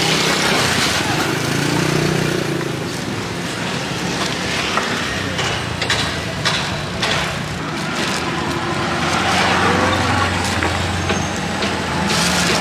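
Busy street ambience: steady traffic noise with indistinct background talk, and scattered sharp clicks and clacks about halfway through and again near the end.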